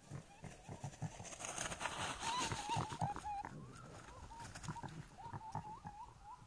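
A series of short, wavering animal calls at a middling pitch, repeated many times, with a rush of hissing noise from about a second and a half to three seconds in.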